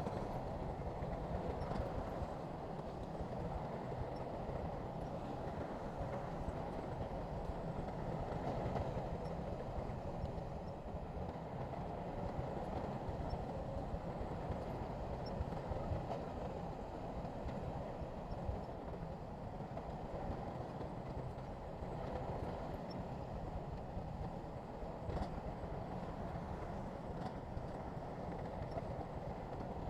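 Bulldozer's diesel engine running steadily under work, with a few faint clanks.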